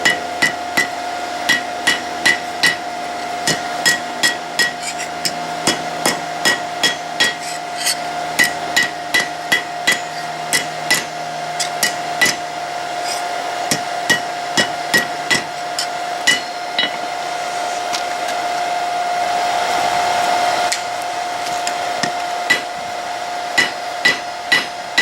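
Hand hammer striking a hot high-carbon steel file bar on an anvil, each blow ringing sharply, often about two a second, as the flat of the hammer smooths the piece. The blows stop for several seconds past the middle, then resume near the end. A steady hum runs underneath throughout.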